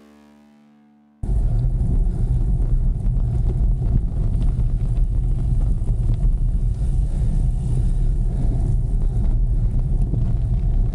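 Music fading out, then about a second in a loud, steady low rumble cuts in suddenly: wind buffeting and gravel-tyre noise on the microphone of a camera riding along on a gravel bike.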